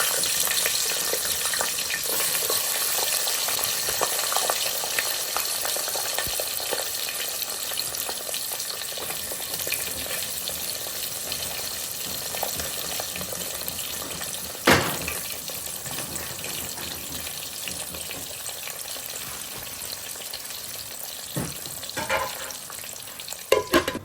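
Stick-cut potato chips sizzling as they deep-fry in hot oil, a steady hiss that slowly gets quieter. There is a single knock about halfway through and a few knocks near the end.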